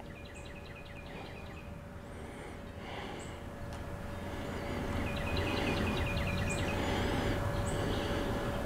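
Outdoor ambience with a songbird calling in quick runs of repeated high chirps, once at the start and again about five seconds in, plus a few brief whistles. Under it are a faint steady hum and a low rumbling noise that grows louder after about three seconds.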